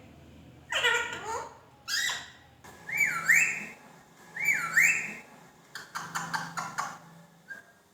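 Pet parrot whistling: two matching wavering notes that dip and rise, about a second and a half apart, among shorter sweeping squawky calls, with a run of quick clicking chatter near the end.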